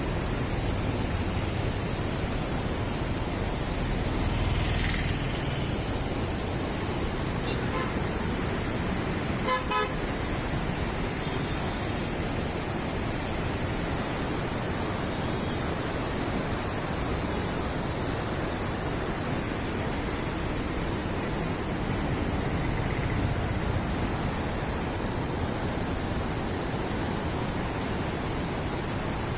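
Steady rushing outdoor road-traffic noise, with a short vehicle horn honk about ten seconds in.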